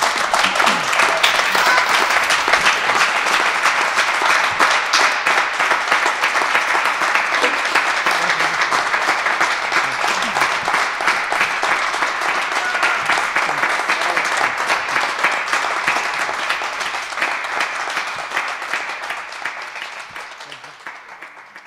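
Audience applauding, a dense steady clatter of many hands clapping that fades away over the last few seconds.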